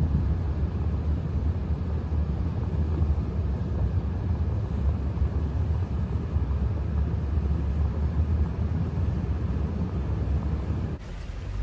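Wind buffeting a phone microphone: a steady, rough low rumble over open floodwater, cutting off sharply near the end.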